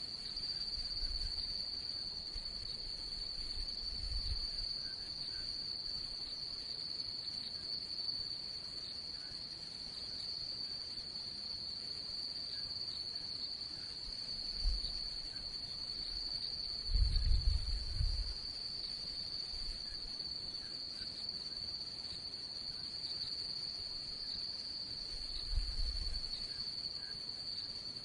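Steady chorus of crickets, one continuous high-pitched trill. A few dull low thumps or rumbles break in under it, the longest a little past halfway.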